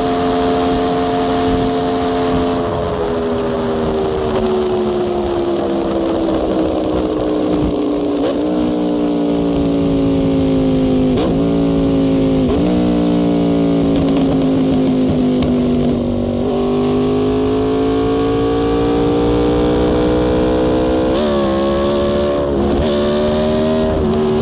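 Aprilia Tuono V4 R's V4 engine under way on the highway. Its note falls for about a dozen seconds as the bike slows, broken by several gear changes, then rises steadily as it accelerates again, with two quick upshifts near the end.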